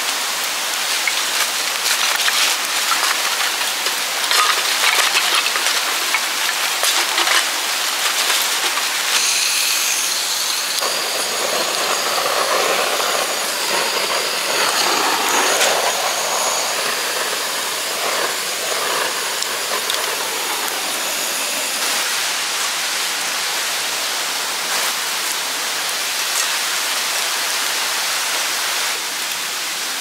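Steady rush of stream water. From about ten seconds in, a handheld butane torch hisses as it lights charcoal in a fire pit, stopping around twenty-two seconds in.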